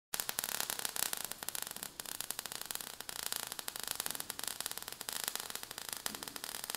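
Crackling sound effect of falling sparks: a dense, irregular patter of tiny clicks over a hiss.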